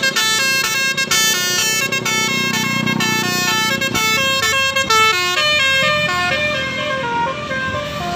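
Bus 'telolet' musical air horn playing a quick melody, note after note stepping up and down in pitch, a little fainter over the last couple of seconds.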